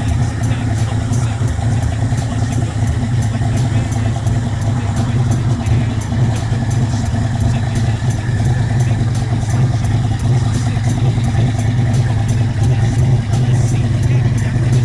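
Big-block Buick V8 with an aftermarket cam, idling steadily through loud exhaust.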